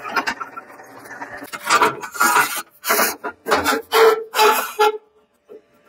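A drill with a step bit cutting into a thin-walled metal tube, then a run of about seven loud, short clatters from a plastic cable drag chain being handled, ending about five seconds in.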